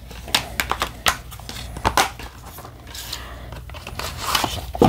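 Plastic Blu-ray case and cardboard slipcover being handled: scattered clicks and rustles as the case is closed and slid into its sleeve, with a sharper knock near the end.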